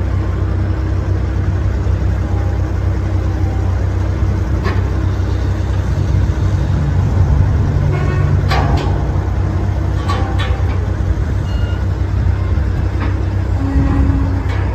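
2003 Ford F-250's 5.4-litre gas V8 idling steadily, with a few sharp clicks here and there.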